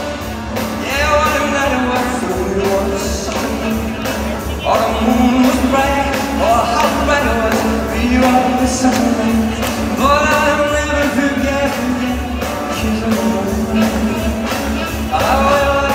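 Live music: a male singer singing into a microphone, backed by a band and orchestra with a steady beat, heard from the seats of a large arena.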